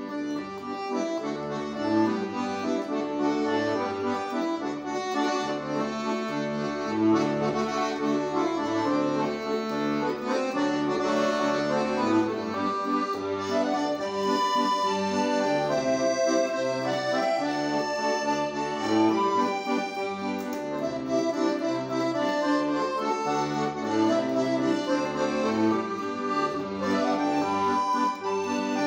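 A piano accordion played solo: a melody on the right-hand keys over alternating bass notes and chords from the left-hand buttons, in a steady rhythm.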